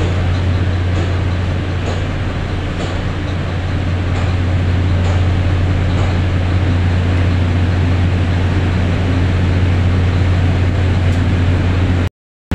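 A 3 hp electric pump running steadily, with a strong low hum under an even mechanical rush. Near the end the sound cuts out completely for a split second.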